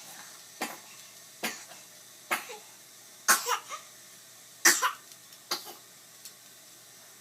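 A person coughing in short, sharp bursts, about seven of them, some coming in quick pairs.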